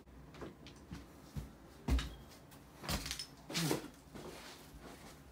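A few scattered knocks and bumps in a quiet small room, typical of someone moving about and fetching something.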